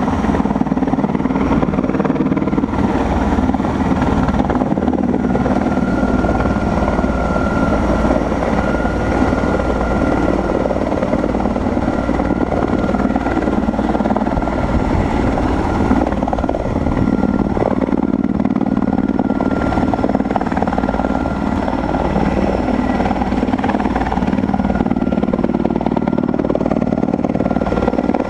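Erickson S-64 Air Crane helicopter running steadily and loud: the turbines give a constant high whine over the low throb of the rotor.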